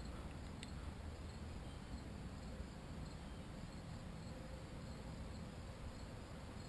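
Quiet outdoor ambience: a faint steady trill of crickets and other insects over a low rumble.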